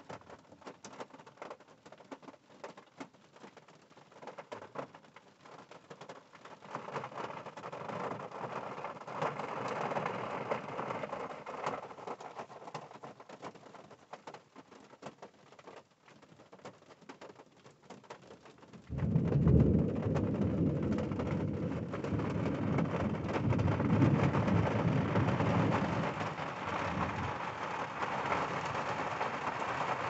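Rain in a thunderstorm: scattered drops at first, then building to a steady fall. About two-thirds through, a sudden, much louder deep rumble of thunder breaks in and keeps rolling under the rain.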